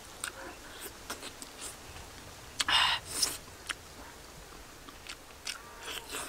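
A person eating with her mouth: wet chewing and lip-smacking clicks, with a loud breathy puff about halfway through and a smaller one just after.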